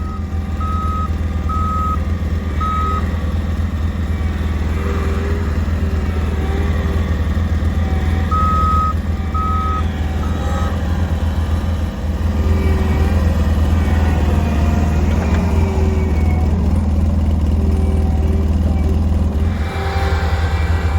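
Bobcat skid steer engine running steadily under work, with its backup alarm beeping three times near the start and three more times about eight seconds in as the machine reverses.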